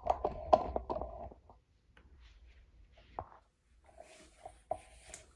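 Hands handling small cardboard and magnetic toy pieces: a burst of crackly rustling and clicks in the first second or so, then a few scattered light taps.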